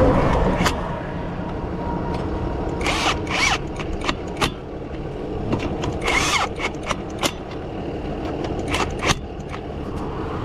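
Steady roadside traffic noise with scattered sharp metallic clicks and short rasping bursts from tools during a roadside tire change.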